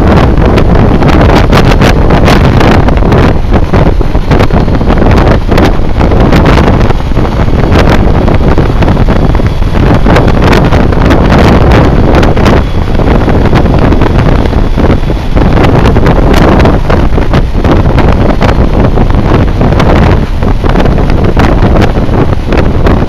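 Wind buffeting the microphone of a small camcorder on a BMW K1200R Sport motorcycle under way at road speed: a loud, unbroken, fluttering rush that largely covers the bike's engine and road noise.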